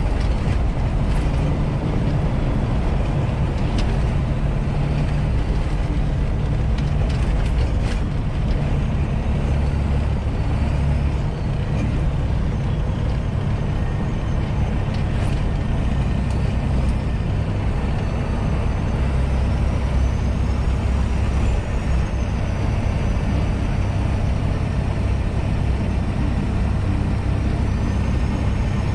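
Semi-truck engine and road noise heard inside the cab while driving, a steady low rumble.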